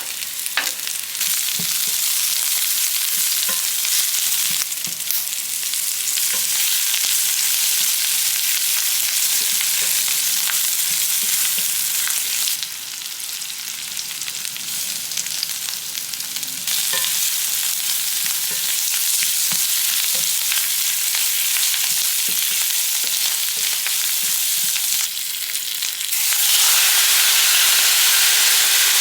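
Food sizzling in a hot frying pan, a dense steady hiss with occasional light taps of a utensil; the sizzle's level changes abruptly several times.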